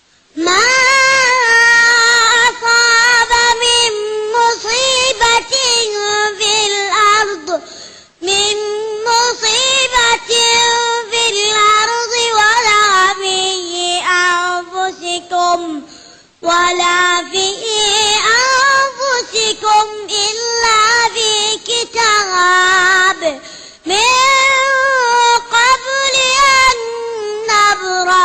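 A child's voice reciting the Quran in a melodic, drawn-out chant, with long held and ornamented notes. It comes in long phrases with a brief pause for breath about every eight seconds.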